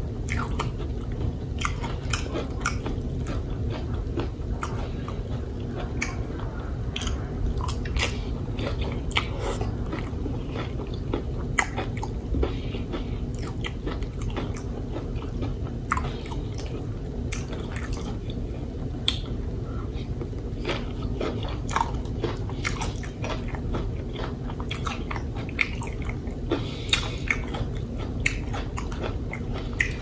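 A person eating fried chicken wings and loaded nachos: steady chewing and biting with many sharp crunches and clicks.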